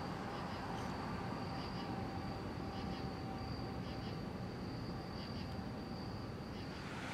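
Crickets chirping in a steady high trill over a low background rumble of a city at night. The chirping stops just before the end.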